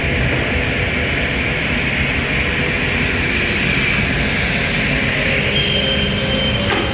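Morbidelli CNC machine running with a steady rumble and hiss. About five and a half seconds in, a steady high whine joins it, and a sharp click comes near the end.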